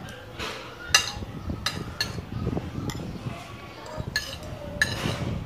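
Metal spoon and fork clinking and scraping on a ceramic plate while eating, about half a dozen sharp clinks.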